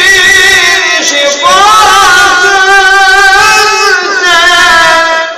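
An elderly man singing solo and unaccompanied in a slow, melismatic Turkish style. His held notes waver with ornaments, and a new, higher phrase rises about a second and a half in.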